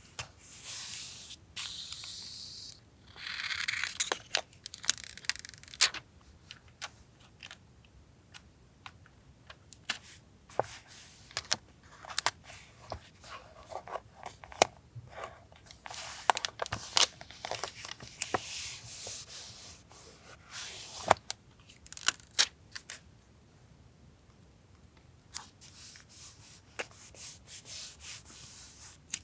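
Paper being torn and handled: several stretches of ripping and rustling, with many light taps and clicks between them.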